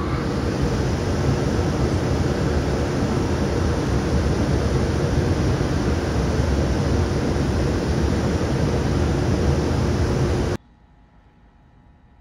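Cooling blowers of a JR Freight EH200 electric locomotive running at full speed after start-up: a loud, steady rush of air over a low rumble. It cuts off abruptly about ten and a half seconds in, leaving only faint background.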